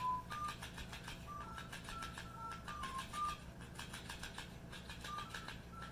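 A simple tune of short, pure beeping notes hopping between a few pitches, over faint clicking and rustling as a Boston terrier chews a plush fish toy.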